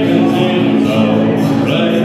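Live male vocal sung into a microphone over an acoustic guitar, the voice holding notes and moving between them.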